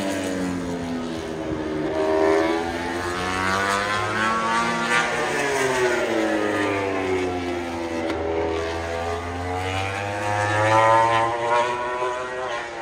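Several high-revving engines overlapping, their pitch dipping and climbing again every few seconds, typical of racing motorcycles braking and accelerating through corners.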